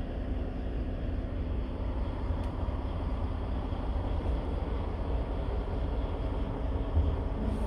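Scania P truck's diesel engine idling steadily, a low rumble heard from inside the cab, with a brief low bump near the end.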